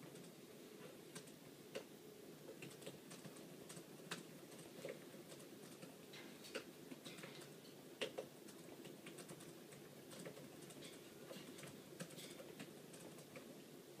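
Faint, irregular small clicks and light taps over a low steady hum, with a louder double click a little past the middle.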